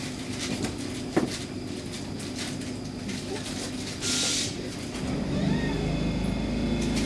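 Stockholm metro C6 car standing in the tunnel, heard from inside: a steady low hum, a single click about a second in, and a short hiss about four seconds in. About a second after the hiss a deeper hum sets in and grows louder.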